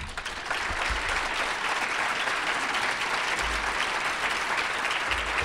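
Audience applauding, building over the first half second and then holding steady.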